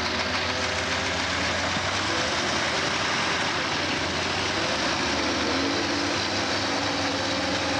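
Off-road trial truck's diesel engine running under load as the truck crawls over loose rock on a steep slope, its note shifting about five seconds in.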